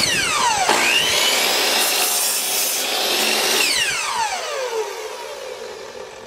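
Compound miter saw motor whining up to speed and its blade cutting a miter through an oak board. Near the end the motor winds down with a falling whine.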